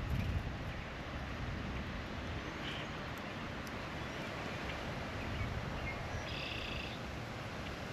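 Steady outdoor background noise, with a short bird call about two and a half seconds in and a longer, half-second bird call a little after six seconds.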